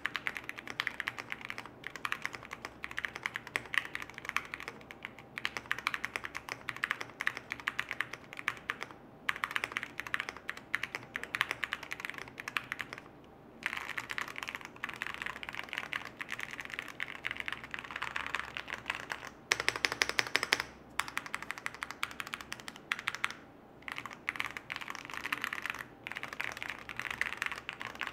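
Fast typing on a mechanical keyboard fitted with dye-sublimated keycaps: a dense run of key clicks broken by a few short pauses, with a louder stretch of strokes about two-thirds of the way through.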